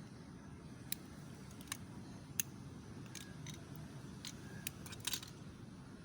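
Scattered light, sharp clicks and ticks over a low steady hum: fiber splicing tools and parts being handled while preparing a fiber for fusion splicing.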